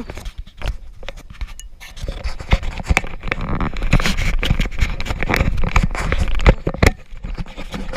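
Close handling noise: a dense run of rubbing, scraping and knocks from hands and a fishing rod grip moving against the camera right at the microphone, dropping away about seven seconds in.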